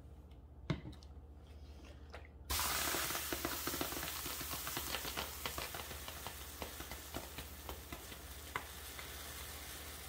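A hot clothes iron pressed onto a wet towel: the water sizzles and hisses into steam with a dense crackle, starting suddenly and slowly dying away, as the steam is driven into a dent in engineered wood flooring to swell it back up. A single knock comes shortly before.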